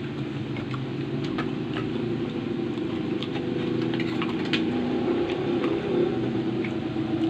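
A motor engine idling steadily, growing slightly louder, with scattered short crisp crunches of chewing pork chicharon.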